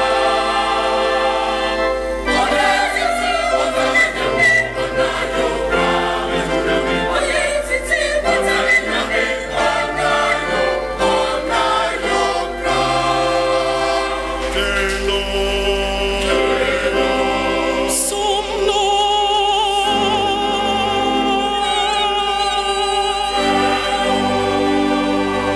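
A large mixed Methodist singing-band choir singing an anthem in harmony, accompanied by an electronic keyboard, with no break.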